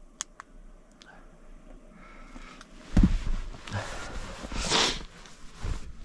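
A person moving out of a truck cab: a few faint clicks near the start, then a heavy thump about three seconds in, followed by rustling and scuffing of clothing and movement.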